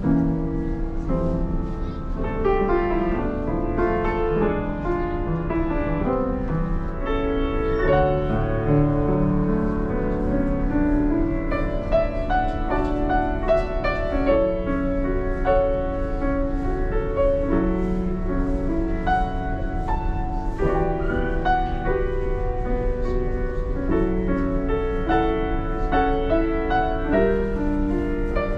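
Grand piano with a clear acrylic case played live: a melody over chords, notes ringing and overlapping. A steady low hum runs underneath.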